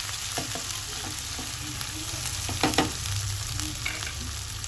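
Chicken drumsticks frying in oil and masala paste in a nonstick pan, a steady sizzle, with a wooden spatula stirring and scraping the pan; a few sharper spatula scrapes stand out, the loudest about halfway through.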